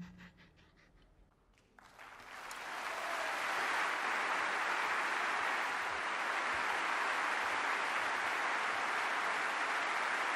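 The band's music stops. After a short hush, audience applause breaks out about two seconds in and builds to steady clapping.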